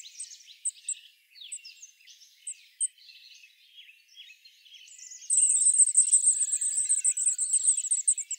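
Thin, very high calls of goldcrests, scattered at first. From about five seconds in comes a loud, unbroken run of rapid high notes: the nestlings begging for food.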